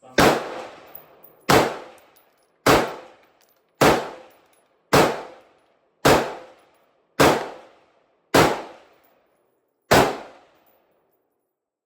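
BCM AR-15 rifle firing 5.56 rounds semi-automatically: nine shots at a steady pace of a little under one a second, each followed by a short echo.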